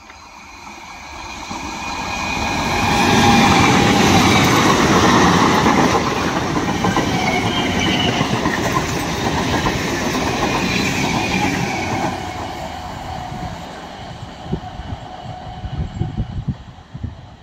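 Electric local train (EMU) passing close by: a rumble and clatter of steel wheels on the rails that builds to a peak a few seconds in, with a thin wheel squeal over it, and fades after about twelve seconds. Sharp wheel knocks come near the end.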